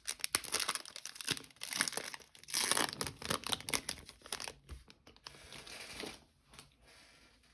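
Foil wrapper of a 2021 Panini Select hobby card pack being torn open and crinkled in the hands, a dense rustling crackle that thins out and dies away near the end.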